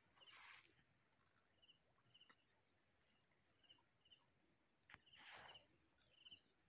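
Faint insect chorus: a steady high buzz with short chirps repeated in pairs about once a second. Two soft rustles, one near the start and one about five seconds in.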